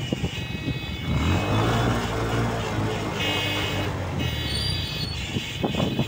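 An SUV's engine running as the vehicle drives slowly past at close range on a gravel road. A steady low hum swells about a second in and fades near the end.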